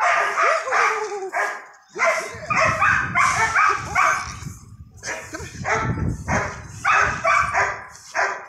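Dog barking repeatedly in quick runs of several barks, with short pauses between the runs.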